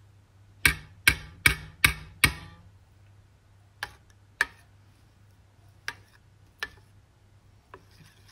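A spoon knocking against the side of a stainless steel pan while stirring thick body butter: five quick sharp knocks about a second in, then a few lighter, spaced-out taps.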